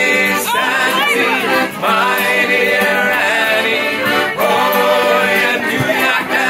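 Music with a singing voice holding and sliding between long notes over a steady low drone note.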